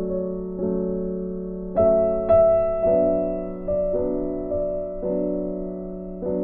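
Background piano music: soft chords struck about once a second, each ringing on and fading before the next.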